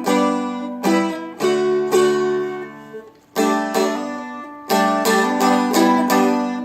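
Seagull Merlin fretted dulcimer being picked: a short melody phrase over ringing strings, with a brief pause about halfway through, then a quicker run of notes near the end.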